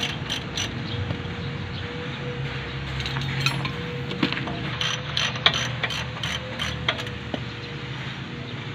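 Ratchet wrench clicking in short, fast runs of about four to five clicks a second, with pauses between, as a bolt is worked on a car's front suspension.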